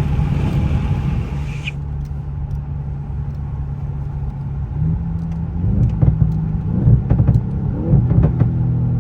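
Power window closing, shutting out the outside hiss about two seconds in. Then a straight-piped Audi S8's twin-turbo V8 idles, heard from inside the cabin. From about five seconds in it is revved in several blips, with sharp pops and crackles from the exhaust.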